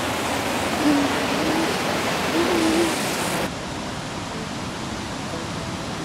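Waterfall rushing, a steady wash of falling water that drops in level and loses its hiss about three and a half seconds in.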